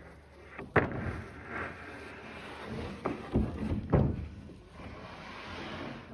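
A few sharp knocks and thuds, four or so, spread through a steady rushing noise.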